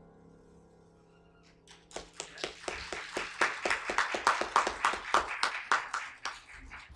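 The last chord of a grand piano dies away. About two seconds in, a congregation starts applauding with quick, uneven claps that swell and then taper off near the end.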